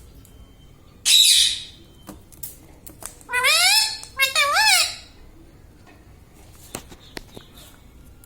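Indian ringneck parrot gives one harsh squawk about a second in. A few seconds in it makes a high-pitched two-part call that rises and falls in pitch.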